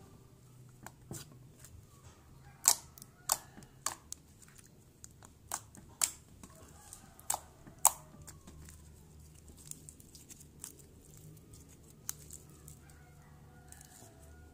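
Pink toothpaste slime being stretched, folded and pressed by hand on a tabletop, giving scattered sharp wet pops and clicks, about a dozen in all. The loudest come a few seconds in and near the middle, with fewer toward the end.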